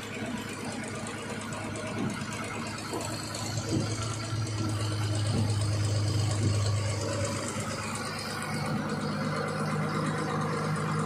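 Engine of a rail-mounted truck running steadily. Its low hum grows louder in the middle, then settles to a slightly higher, steady pitch near the end, with a few faint knocks.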